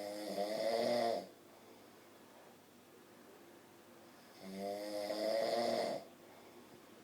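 A man snoring in his sleep: two long snores about four seconds apart, each lasting around a second and a half, with quiet between them.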